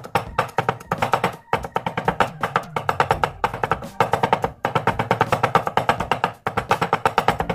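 Garlic being minced with a cleaver on a wooden cutting board: fast runs of sharp knocks on the wood, broken by brief pauses.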